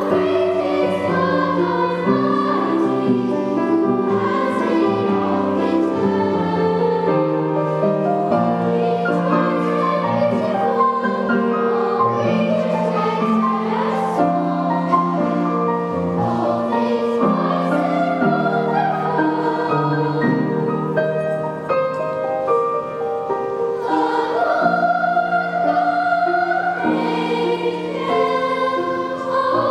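Children's choir singing a choral piece, a continuous sung line with no pauses.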